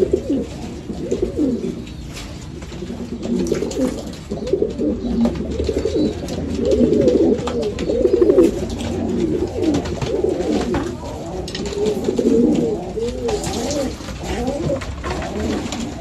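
Many domestic pigeons cooing together in a loft, their wavering coos overlapping continuously.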